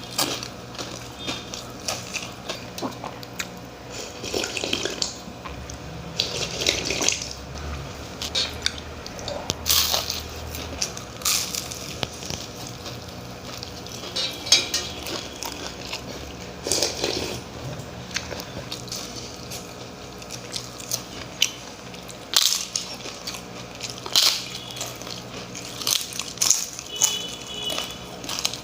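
Close-up eating sounds of water-soaked rice (panta bhat) being eaten: chewing and wet mouth noises with squelches of the soaked rice, broken by short sharp clicks and clinks against a plate.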